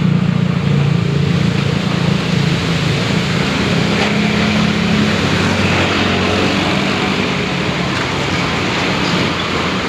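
Strong whirlwind wind blowing, a loud continuous rush of noise, with a low steady drone underneath that fades out about halfway through.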